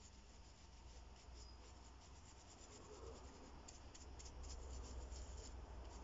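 Faint scrubbing of a brush working black metallic wax into the crevices of a cold-cast bronze cloak clasp, in rapid short strokes that grow a little louder toward the end.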